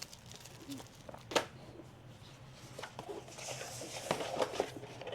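Puzzle kit packaging being handled: light taps and a sharp click about a second and a half in, then a stretch of rustling in the middle.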